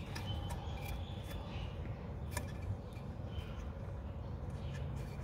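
A few faint clicks from handling the plastic connector of the rear wheel-speed sensor wire, over a steady low hum.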